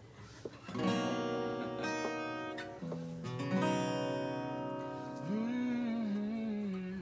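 Acoustic guitar intro: after a brief pause, strummed chords start about a second in and ring on. A man's wordless voice rises in and holds a wavering note near the end.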